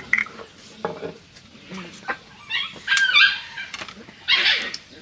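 Domestic chickens clucking, loudest in a run of bending calls about halfway through, with a short rasping burst near the end and light clicks and knocks in between.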